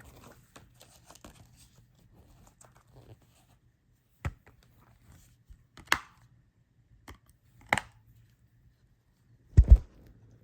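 Plastic packaging of a Blu-ray being handled: light crinkling and tearing at first, then three sharp clicks a second or two apart. Near the end come two heavy thumps close together, the loudest sounds.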